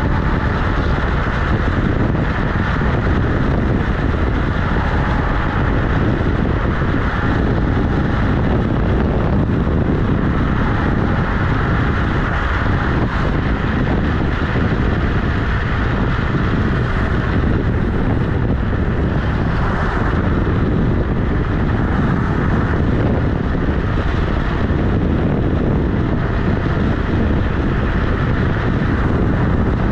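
Kugoo G-Booster electric scooter riding along a road, heard from a camera mounted by its wheel: steady wind noise on the microphone mixed with the rumble of the tyre on asphalt.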